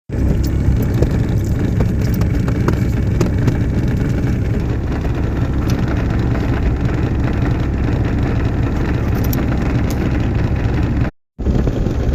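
Steady low rumbling noise with no clear pitch, cut off for a moment about eleven seconds in.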